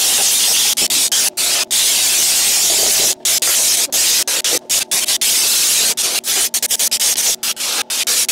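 Compressed-air spray gun hissing as it sprays stone-chip coating into a car's wheel arch. The hiss is loud and steady, broken by brief gaps several times.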